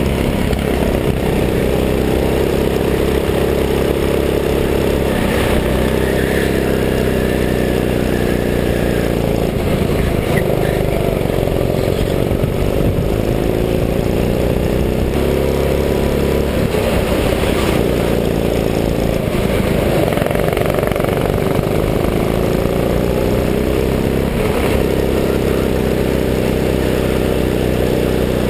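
Go-kart engine heard from on board, running hard with its revs rising on the straights and falling away into the corners, over and over.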